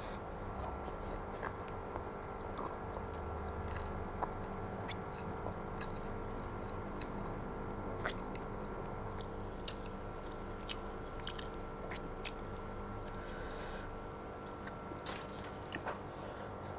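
Close-up chewing of chicken noodles: many short, wet mouth clicks and smacks, over a steady hum.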